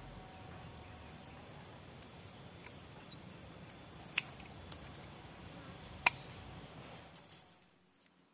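Pliers or wire cutters working bonsai wire: two sharp snips about two seconds apart, with a few fainter clicks of the tool and wire. A steady high-pitched hum runs underneath and stops near the end.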